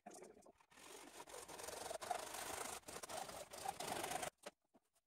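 Hard plastic of a toilet-cistern part being cut by hand with a saw: a continuous scraping that stops abruptly a little past four seconds in.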